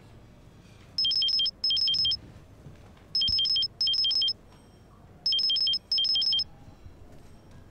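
Mobile phone ringing: an electronic ringtone of rapid beeps alternating between two high pitches, sounding as three double rings about two seconds apart.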